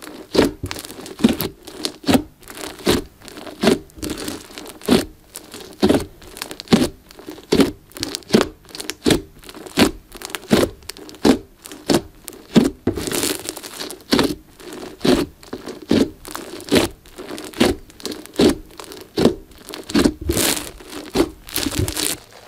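Glossy slime studded with small foam beads being pressed, poked and kneaded by hand. It gives a sharp squelching pop about every second, over and over.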